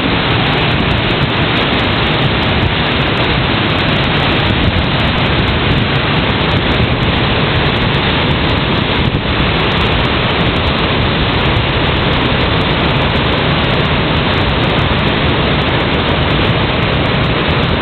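Whitewater of a river rapid rushing: a loud, steady, even noise that keeps up without a break.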